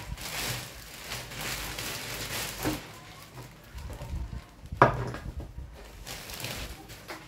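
Thin plastic bag rustling and crinkling as paper scraps are gathered and stuffed into it, with one sharp knock about five seconds in.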